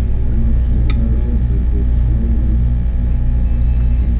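Steady low mechanical hum, with a single light clink about a second in.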